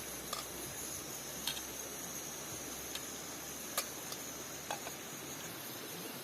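Quiet outdoor ambience: a steady high-pitched hiss, broken by a few sharp, irregular clicks or pops roughly once a second.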